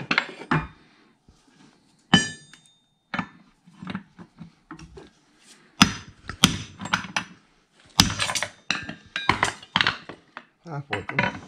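Irregular sharp metal knocks and clanks at a steel anvil, some ringing briefly, as a steel suspension control arm and a bronze pipe sleeve are knocked about and driven to press in a new rubber bushing by hand rather than with a press.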